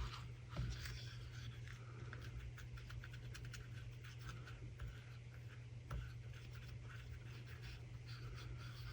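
Short stubby brush scratching and rubbing as chameleon flakes are burnished into a silicone mould: a quick, irregular run of faint strokes over a steady low hum.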